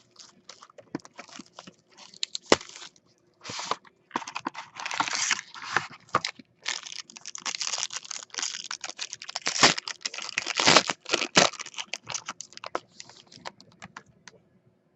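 Trading card box and pack wrapping being torn open and handled: irregular bouts of tearing, crinkling and rustling with sharp clicks, dying away near the end.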